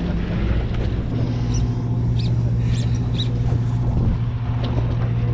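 Sportfishing boat's engine running with a steady low hum that grows stronger about a second in, and a few short high chirps in the middle.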